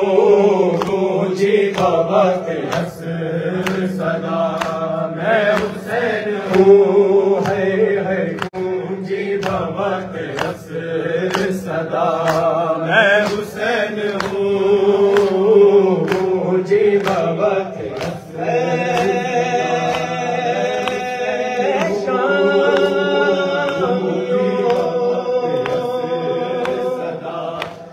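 Male reciters chanting a noha (Shia lament) live into microphones, with a congregation's voices joining in, over a regular beat of sharp strikes typical of matam (chest-beating).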